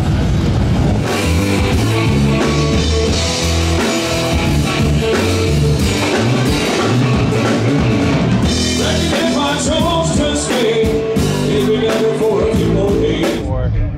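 Rock music with a drum kit, guitar and singing, stopping abruptly near the end.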